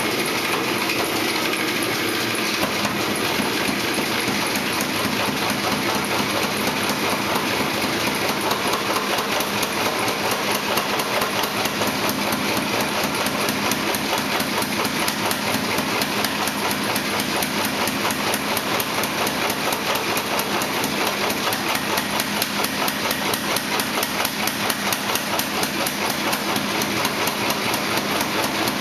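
Rapid, steady hammer blows on steel being forged into a spearhead, about five a second without a break, over a steady rushing noise.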